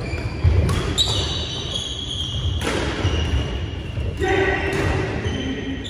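Badminton rally in a large sports hall: several sharp racket strikes on the shuttlecock a second or two apart, with high shoe squeaks on the wooden court floor, all echoing in the hall.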